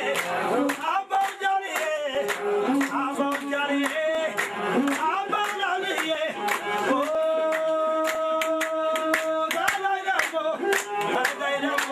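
A group singing to steady rhythmic hand clapping, with a long held note from about seven seconds in to nearly ten.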